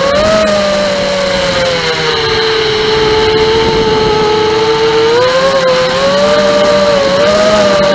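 Furibee Darkmax 220 FPV racing quadcopter's motors and propellers whining steadily, the pitch sagging in the middle and climbing again with throttle changes.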